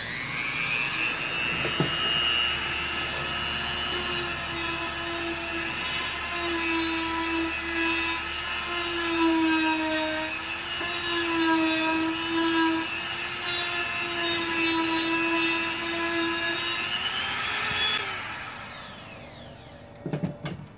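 HARDELL corded rotary tool spinning up to a high whine and running on a piece of wood, its pitch dipping slightly now and then under load. About 18 seconds in it is switched off and winds down, followed by a few light knocks.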